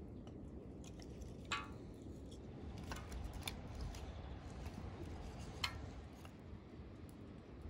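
Split wooden kindling sticks knocking and clicking as they are laid by hand into a shallow metal fire pan: a few sharp, separate clicks over a steady low background.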